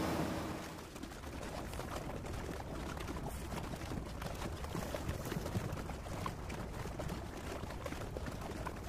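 Water splashing, an uneven rush with many small crackles.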